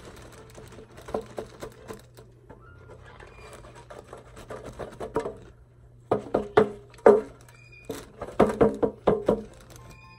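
Cardboard egg-crate pieces knocking and scraping against a clear plastic bin, with a plastic bag rustling, as feeder crickets are shaken out. It comes in scattered bursts of sharp taps, loudest between about six and nine seconds in.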